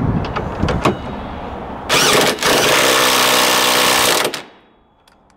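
Corded electric impact wrench running up the top mounting bolt of a new rear shock absorber on a Vauxhall Astra H, in a short burst and then a longer run of about two seconds that stops abruptly. A few light clicks come first as the socket and extension are fitted onto the bolt.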